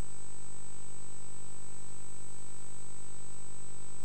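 Steady electrical hum and hiss on the audio line, with a thin high-pitched whine over it. It does not change throughout, and there is no voice.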